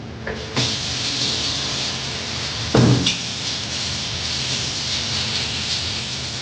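Kitchen tap turned on and running steadily into the sink, with one loud knock about three seconds in.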